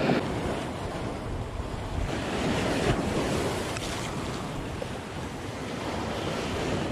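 Sea waves breaking and washing against a rocky shore, the surf swelling louder at the start and again about three seconds in, with wind buffeting the microphone.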